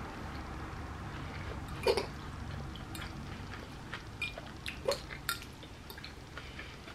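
Wet chewing and mouth sounds of someone eating pasta salad, with a few sharp clicks of a metal fork against a ceramic bowl, the loudest about two seconds in. A low steady hum runs underneath.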